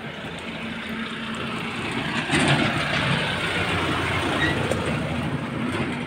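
Traffic noise from a road vehicle passing close by on a highway. The noise swells to its loudest about two and a half seconds in and stays up after that.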